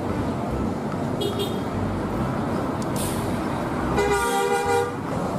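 Steady road traffic noise as coaches drive past, with one loud horn blast from a bus lasting just under a second about four seconds in.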